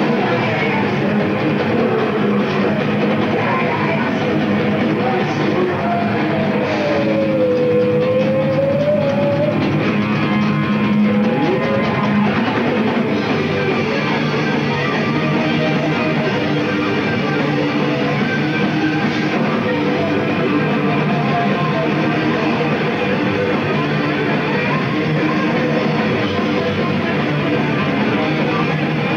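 Hardcore punk band playing loud live: distorted electric guitars, bass and a pounding drum kit. A long note slides up and down in pitch about five seconds in.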